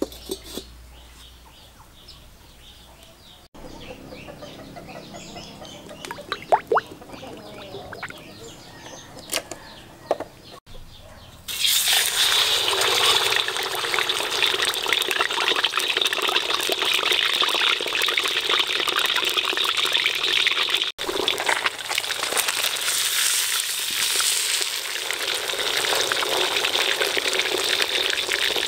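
Whole scored fish deep-frying in hot oil in a wok, a loud steady sizzle and crackle that sets in about a third of the way in. Before it, a few sharp metallic clinks.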